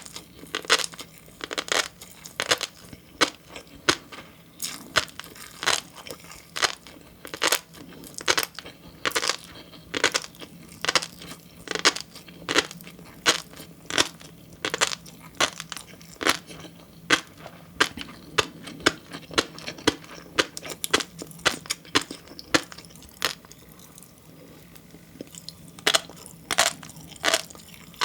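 Close-miked chewing of flying fish roe (tobiko), with many sharp crackly pops, about two or three a second, as the eggs burst between the teeth. There is a brief lull about three-quarters of the way through.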